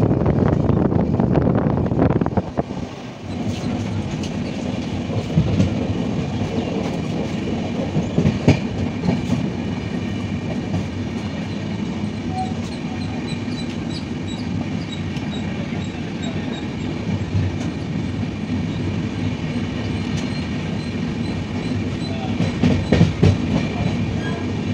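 Passenger train running on the rails, heard from inside a coach: a steady rumble of wheels and carriage, louder for the first couple of seconds, with a few sharp clacks from the wheels.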